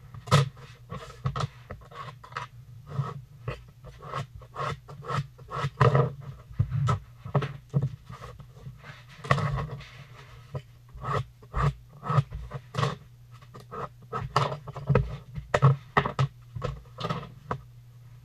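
Floor tile being scored with a utility knife along a square: quick repeated scraping strokes, about two a second, over a low steady hum.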